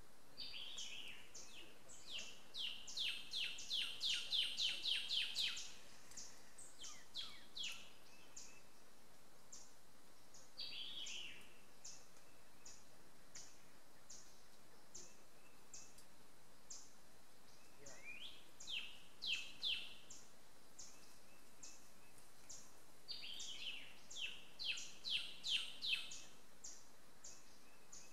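Woodland songbirds: three songs of rapid high notes, several a second, that grow louder before stopping, with a steady series of single high chips between the songs.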